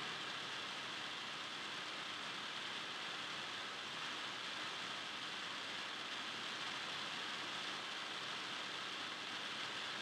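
Steady even hiss of gym room tone, with no distinct sounds standing out.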